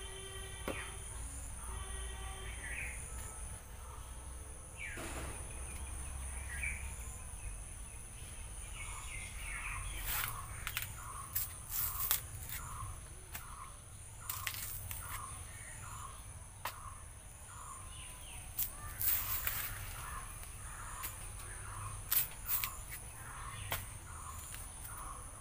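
Outdoor garden ambience: a steady high-pitched insect drone with birds calling, and from about ten seconds in a bird repeating a short call about every half second. Scattered sharp clicks and scrapes from a small knife cutting the peel of a green banana.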